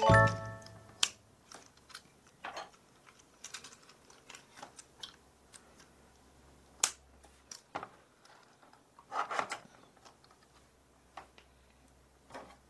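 Hard plastic clicks and snaps from the joints of a Robot Trains Alf transforming toy as its parts are turned and locked into place by hand. They come irregularly, a dozen or so, with a quick run of clicks about nine seconds in.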